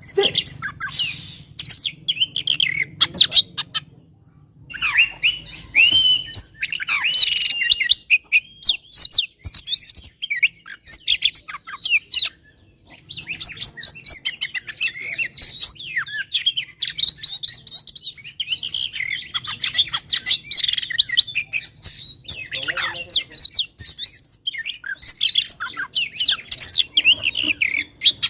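Oriental magpie-robin (kacer) singing a fast, agitated song of varied whistles and chattering glides, with short breaks about four seconds in and again near twelve seconds. This is the excited fighting song used to provoke other magpie-robins.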